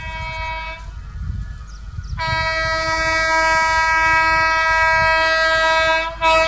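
Electric locomotive's air horn sounding on an approaching train: a short blast ending about a second in, then a long steady blast from about two seconds in. It breaks off briefly and gives a last short blast near the end, over the low rumble of the running train.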